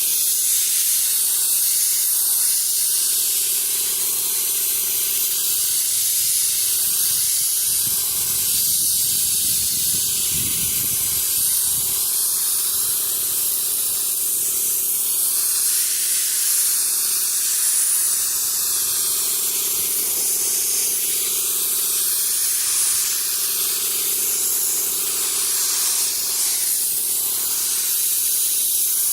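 Air-powered paint spray gun hissing steadily as paint is sprayed, with a faint steady hum underneath.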